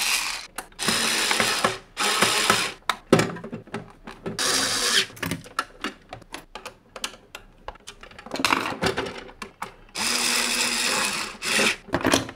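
Electric screwdriver driving in the screws of a piggy bank's bottom plate, in about six short runs of around a second each, with clicks and handling knocks between.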